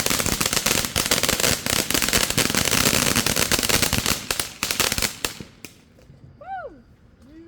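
Fireworks crackling: a dense, rapid string of sharp pops like a firecracker string, which thins out and stops about five and a half seconds in.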